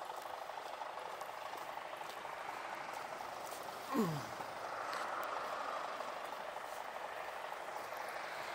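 Steady hum of vehicle engines and traffic around a motorway service area, with a slight swell around five seconds in. A short sound falling quickly in pitch cuts in about four seconds in.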